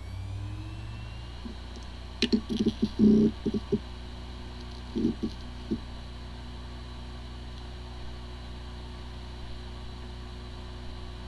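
Hard drive powering up: a rising spin-up whine near the start, then short bursts of head-seek knocks and a click about two seconds in and again about five seconds in, then the platters spinning steadily with a low hum. It sounds like a healthy drive, but it has disk firmware corruption and the computer cannot detect it.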